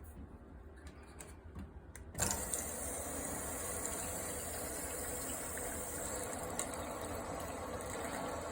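A few faint clicks of handling, then about two seconds in a valve is opened on a water filter and water starts rushing steadily through the filter and its pipes.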